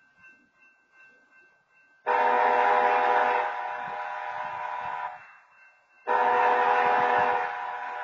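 Train horn sounding two long blasts, each about three seconds with a second's gap, a steady chord of several tones: the opening of the long-long-short-long signal for a road crossing.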